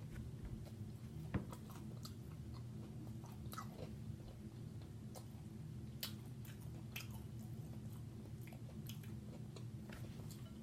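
Close-miked chewing and biting of seafood-boil food, with scattered sharp crunchy clicks over a steady low hum.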